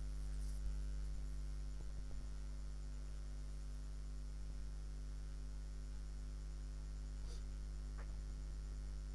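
Steady low electrical mains hum with a buzzy stack of overtones. A few faint ticks come through, two of them near the end.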